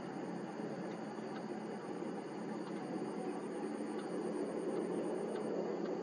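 A fast, high-pitched insect trill, pulsing about eight times a second, over a steady low rushing background noise that grows slightly louder; the trill stops shortly before the end.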